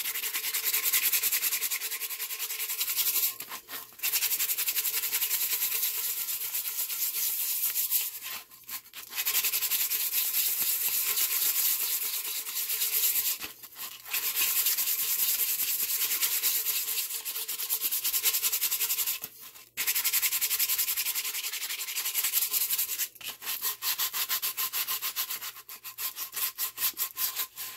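180-grit sandpaper held in the hand, scrubbing over the cured epoxy and glitter coat of a stainless steel tumbler to knock down sharp glitter pieces sticking up. Really loud scratching in long runs broken by four brief pauses, turning into quick, short back-and-forth strokes near the end.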